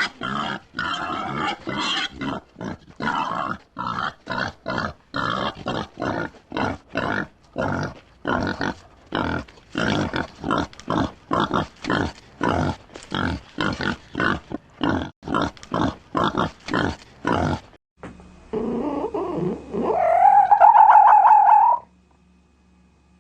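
Wild boar grunting over and over, about two short, rough grunts a second. Near the end the grunts stop and a different animal call takes over, rising in pitch and held for a couple of seconds, the loudest sound here, before it cuts off.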